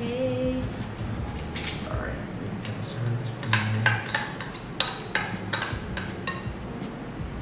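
A spoon clinking and scraping against a bowl as minced vegetable is emptied from a white bowl into a wooden mixing bowl of ground meat. The sound is a run of sharp clinks and taps, mostly in the middle stretch.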